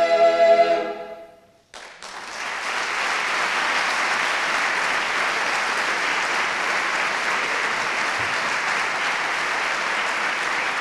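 A mixed chamber choir holds its final chord and lets it fade out about a second in. After a short silence, an audience breaks into steady applause.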